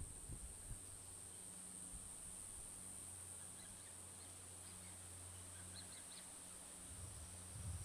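Faint rainforest ambience: a steady high-pitched insect drone with a few faint bird chirps in the middle, over a low steady hum. A low rumble builds near the end.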